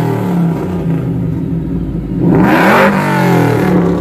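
Ford F-150 pickup's engine, heard at its exhaust, idling then blipped once in neutral about two seconds in, the pitch rising quickly and falling straight back to idle.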